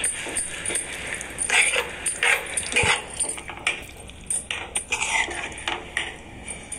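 Clothing-store ambience: a steady background with irregular light clicks and clinks, like hangers and handling.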